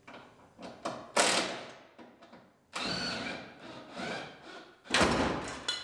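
Plastic masking sheeting and tape being pulled off a freshly painted truck cab, crinkling and tearing in several bursts. The loudest bursts come about a second in and near the end.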